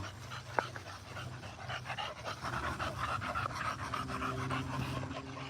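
Dogs panting fast, a rapid run of short breaths, with a sharp click about half a second in.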